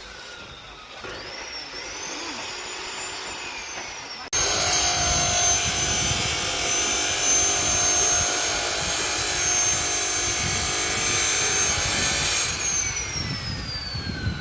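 A high-pitched motor whine with a rushing noise under it. It jumps suddenly louder about four seconds in, holds steady, then falls in pitch near the end.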